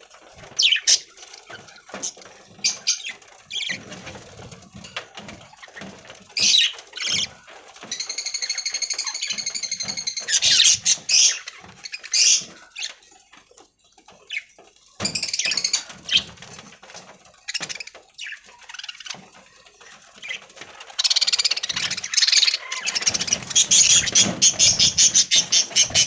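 A flock of budgies chattering: many short high chirps, one held warbling call about a third of the way in, and a dense run of fast repeated chirps near the end.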